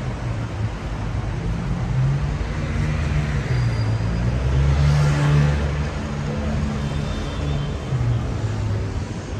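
A motor vehicle passing close by, its engine and tyre noise swelling to a peak about halfway through and then fading, over steady road traffic noise.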